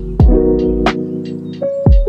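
Background music: a mellow beat of held keyboard chords over a drum pattern, with a deep kick drum about a fifth of a second in and again near the end, and crisp snare or hi-hat hits between.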